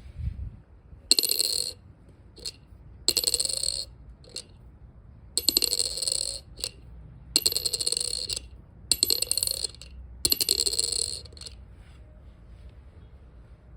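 A penny dropped onto a hard surface about six times in a sound test for brass. Each drop gives a sharp clink and a short, high ringing ping of under a second, with small clicks between the drops.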